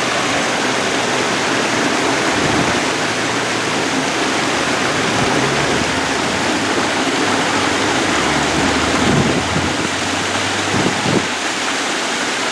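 Steady rush of water falling from an artificial waterfall on a mini golf course.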